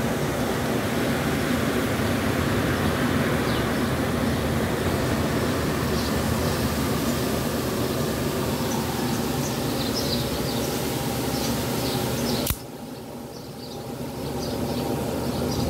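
Steady rushing air noise, and about twelve seconds in one sharp snap as the Microtech Ultratech out-the-front knife's blade retracts into the handle.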